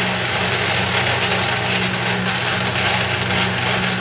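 Electric blade coffee grinder running steadily, its motor humming while the blades grind whole spices: mixed peppercorns, toasted cardamom and cumin.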